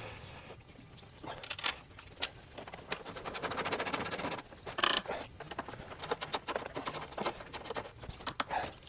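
Clicks and knocks of hand tools and metal hardware being handled on a car's strut tower bar mounts. A run of rapid, even clicking comes from about three to four and a half seconds in.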